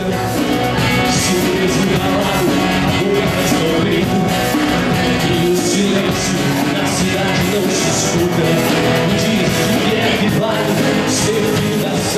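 Live rock band playing, with electric and acoustic guitars and a man singing.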